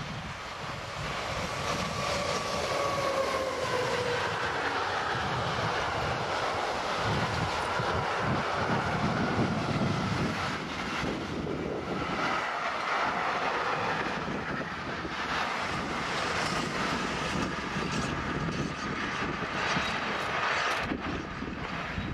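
Freight train passing close by: an electric locomotive in Fret SNCF livery goes past with a whine that falls in pitch as it passes, about three seconds in. It is followed by the steady rolling rumble and clatter of container flat wagons on the rails.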